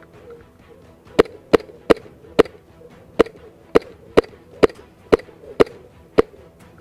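Airsoft replica fired in single shots: eleven sharp cracks at an uneven pace of about two a second, starting about a second in.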